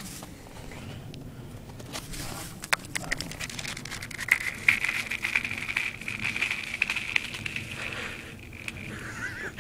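Thin, clear lake ice cracking and ringing as a dog walks across it: scattered sharp cracks and clicks, then a high ringing hiss for several seconds, and a few short falling whistles near the end.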